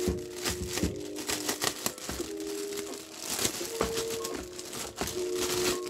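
Thin clear plastic bag crinkling in irregular crackles as it is handled and pulled open by hand, with steady held notes of soft background music underneath.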